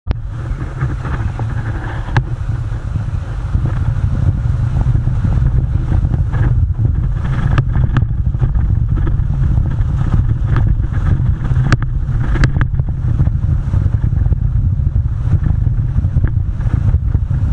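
Vehicle driving along a rough gravel track: a steady low rumble of engine and tyres, with a few sharp clicks.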